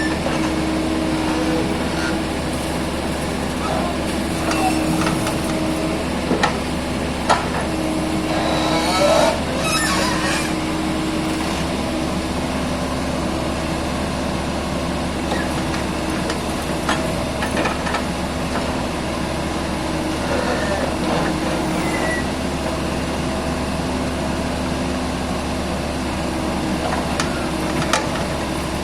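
Excavator's diesel engine running steadily under load, with a whining tone that comes and goes and a few sharp knocks.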